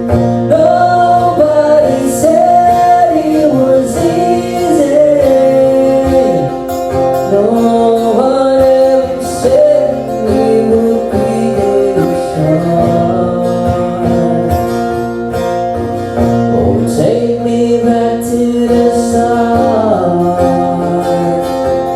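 A voice singing a gliding melody over guitar chords, a live acoustic cover of a pop ballad.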